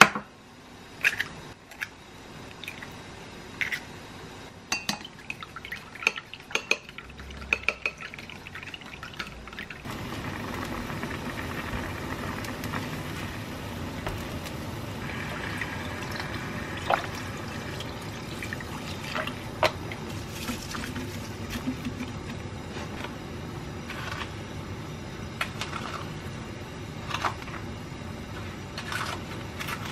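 An egg cracked on a ceramic bowl and beaten with a fork, making a run of sharp clinks over the first ten seconds. Then a pot of water with chicken at a rolling boil, a steady bubbling hiss with occasional clinks of chopsticks and a spoon against the pot.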